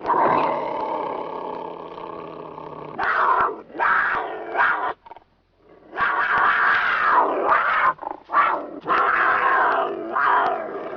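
Leopard giving a series of rough, raspy calls: one long call at the start, then several shorter ones, a brief pause about five seconds in, and a further run of calls.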